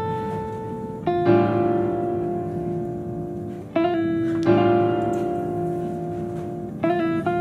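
Slow instrumental music: ringing notes or chords struck every few seconds, each left to sustain and fade before the next.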